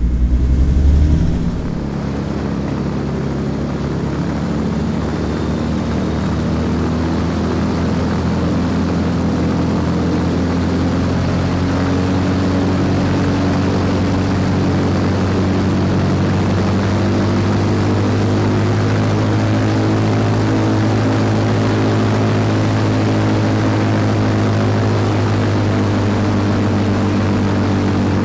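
Avro Shackleton's Rolls-Royce Griffon V12 piston engines running on the ground, turning contra-rotating propellers, with a steady deep drone. The tone changes abruptly about a second and a half in, then the pitch rises slightly over the next ten seconds and holds.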